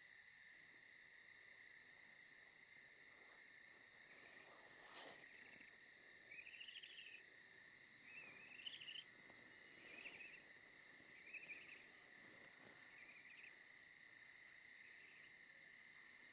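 Faint night ambience of crickets: a steady high insect trill with a string of short chirps every second or two through the middle.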